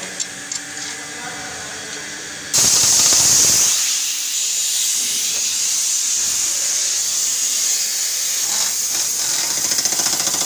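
Pneumatic impact wrench running on the subframe bolts: a loud rush of air exhaust with a rapid hammering rattle, starting suddenly about two and a half seconds in and running on, preceded by a couple of small clicks.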